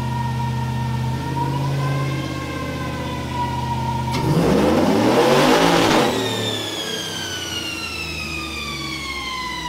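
Cammed 2006 Chevy Trailblazer SS's 6.0 L LS2 V8 making a naturally aspirated pull on a chassis dyno. It runs steadily in gear, then goes to wide-open throttle about four seconds in and rises in pitch for about two seconds. It then lets off, leaving a falling whine as it coasts down.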